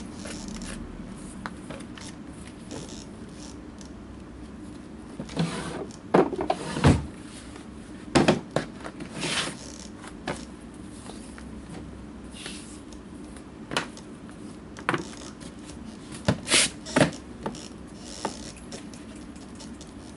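Handling noises at a leatherworker's lap board: scattered knocks, clatters and short scrapes as a leather welt strip, the board and tools are handled and set down, over a steady low hum.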